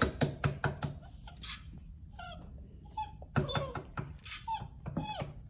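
Seven-week-old basset hound puppy whimpering in short, high, falling cries, with scattered sharp clicks between them.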